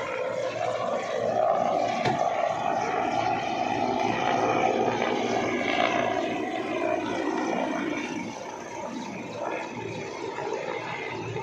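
Aircraft engine noise of an aircraft flying past, steady and loud, then dropping off somewhat about eight seconds in.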